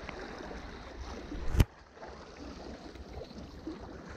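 Handling noise of a chest-mounted action camera being adjusted: fingers and sweater rubbing over the microphone, with one sharp knock about one and a half seconds in. Behind it, a steady low rumble of wind and sea washing on the rocks.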